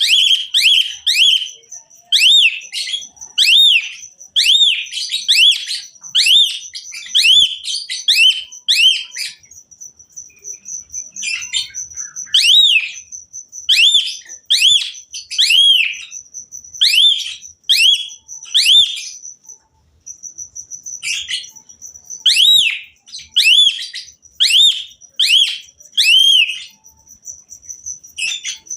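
Pied starling (jalak suren) singing: loud arched whistled notes, about two a second, in phrases broken by two short pauses, over a steady high-pitched buzz.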